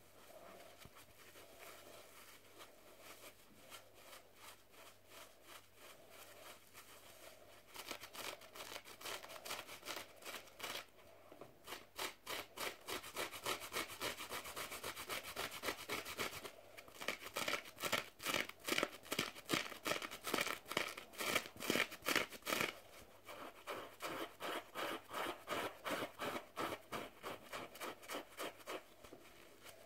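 Fingers scratching and rubbing a bath sponge right against the microphone in quick repeated strokes, a few a second. Soft at first, the strokes grow much louder about eight seconds in, with brief pauses twice along the way.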